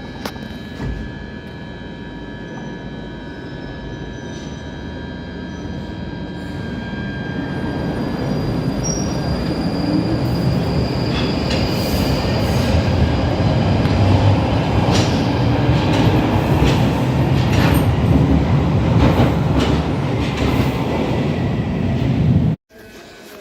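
London Underground Northern line train (1995 Stock) running through a deep-level tube tunnel, heard from inside the carriage. A steady rumble grows louder, with a faint high whine early on. Later the wheels clatter over the rail joints. The sound cuts off abruptly near the end.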